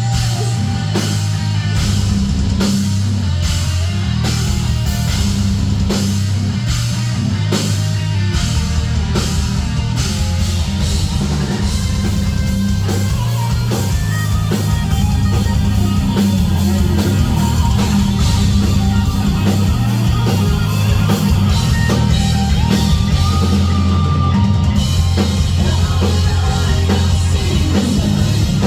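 Heavy metal band playing live: drum kit, distorted guitars and bass. The drums hit in a regular beat through the first part, and the cymbal wash drops away near the end.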